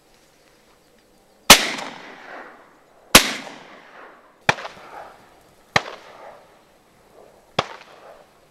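Five shotgun blasts at uneven intervals, the first two loudest, each trailing off in an echo.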